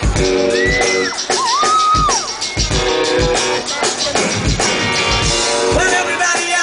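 Live rock band playing a song intro amplified through a PA: drum kit beating about twice a second under guitar chords, with a high melody line that slides up and down in pitch above them.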